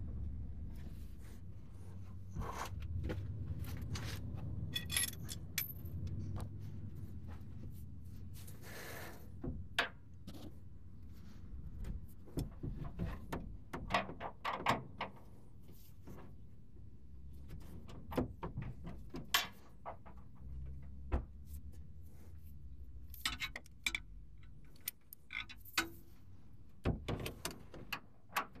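Hand tools working a rear shock nut on metal: irregular sharp clicks, clinks and knocks, with a low rumble in the first several seconds.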